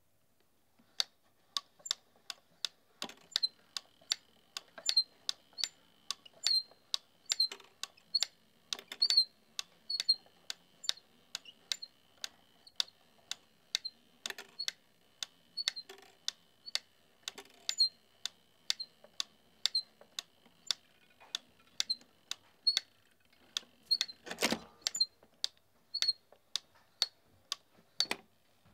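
Hand-cranked wooden automaton mechanism clicking as the crank is turned, about two clicks a second, with a faint steady high whine under them. A heavier knock comes near the end and another just before it stops.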